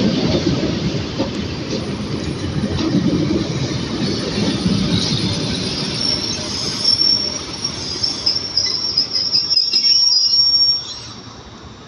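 ЭП2ДМ electric multiple unit pulling into the station and braking: the wheels rumble on the rails, and a high steady squeal from the braking wheels comes in about six seconds in. Near the end the squeal and rumble cut off suddenly as the train comes to a stop.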